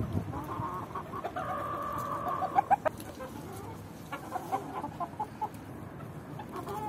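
Chickens clucking: one drawn-out call held for about a second and a half, ending in a few sharp notes, then a run of short clucks.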